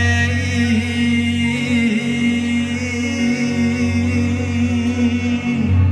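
Live amplified music: long sustained sung notes held over a steady low drone from the band's accompaniment.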